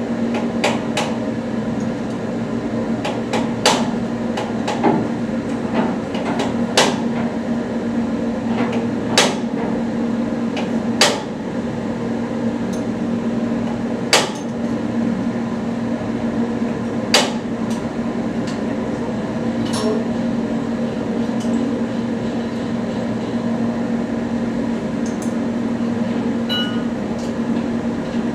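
Tools knocking on metal parts during a turbocharger overhaul: sharp, separate strikes every few seconds, fainter toward the end, over a steady hum.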